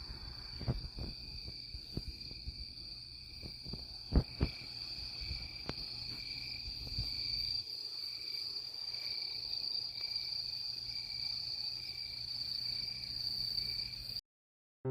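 Insects trilling steadily in a high, unbroken tone, with a second, lower trill pulsing beneath it, and a few low knocks in the first few seconds. The sound cuts off suddenly near the end.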